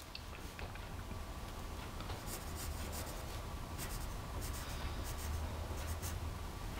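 A blue pencil scratching on A4 paper as a word is written in short strokes, the strokes coming thickest after the first two seconds. A steady low hum runs underneath.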